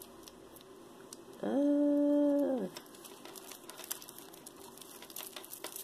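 A single hummed note from a person's voice, about a second long and starting about one and a half seconds in, over light clicking and jingling of metal jewelry being handled as a tangled wire bracelet is worked apart.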